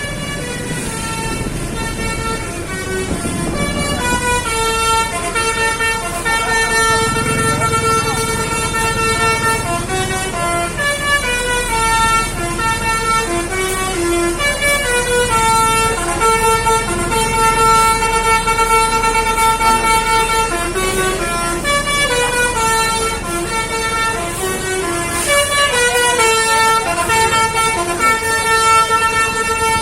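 A bus's 'telolet Basuri' musical air horn playing a tune: loud notes stepping up and down in pitch, several of them held for a few seconds.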